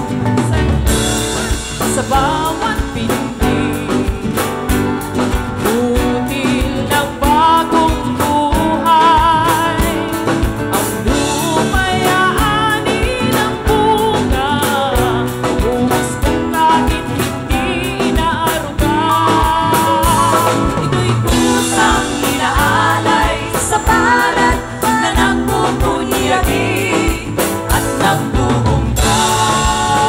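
Live music: a woman singing into a microphone over instrumental accompaniment.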